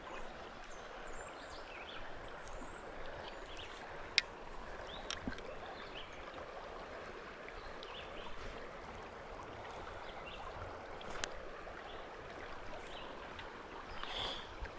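Creek water running steadily, with a single sharp click about four seconds in.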